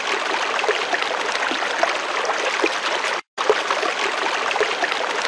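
Small waterfall running over rocks into a pool: a steady rush of water that cuts out for an instant about three seconds in.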